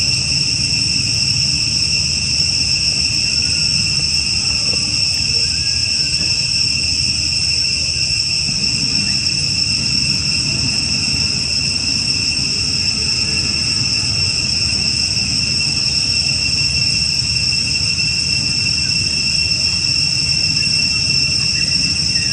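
A steady, unbroken high shrilling of an insect chorus, holding two even pitches throughout, over a low steady background rumble.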